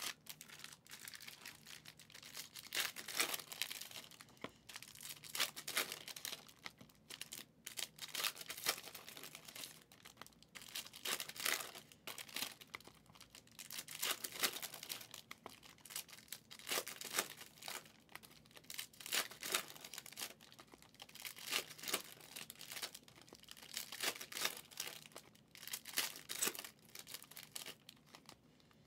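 Foil packs of Prizm football trading cards being torn open and their wrappers crinkled. The tearing and crackling come in short bursts every second or two.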